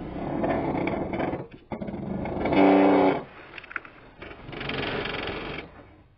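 A large wooden door panel scraping and sliding as it is set down onto a wooden cart, with a brief loud pitched squeak a little before the middle and another stretch of scraping near the end.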